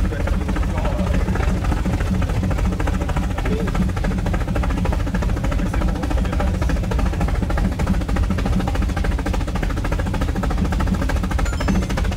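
Brienz Rothorn Bahn rack-railway train running uphill, heard from inside an open carriage: a steady low rumble with continuous fast rattling of the cars on the cog track.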